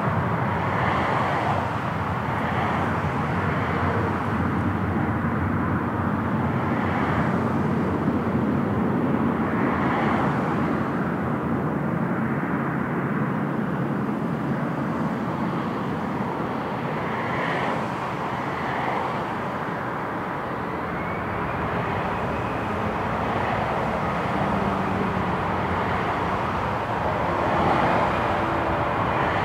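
Four jet engines of an Airbus A380 running at taxi power: a steady rushing hum that swells slightly near the end.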